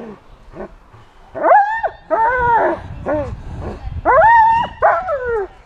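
German shepherd-type dog barking excitedly at a man agitating it: about five long, arching barks, the first starting just over a second in, with a low rumble under them.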